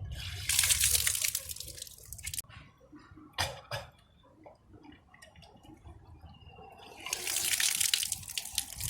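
Drunk water being brought back up and gushing out in kunjal kriya, the yogic cleansing practice of inducing vomiting with the fingers. It splashes down in two gushes of about two seconds each, one just after the start and one near the end, with quieter dripping and a couple of short sharp sounds between them.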